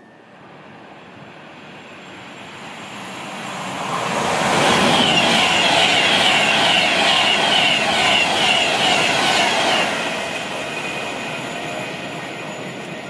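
Avanti West Coast express passenger train passing through at high speed: a rushing sound that builds over about four seconds, holds loud for about five seconds with a fast repeating beat, then fades as the train goes away.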